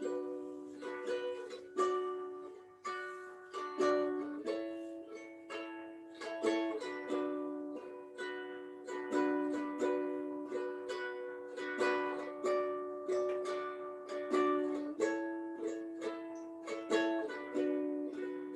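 Instrumental introduction to a mantra song: a strummed acoustic string instrument playing a repeating chord pattern in a steady rhythm, each chord ringing out and fading.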